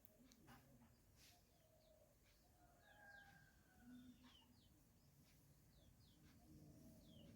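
Very faint bird chirps over near silence: many short, falling calls scattered through.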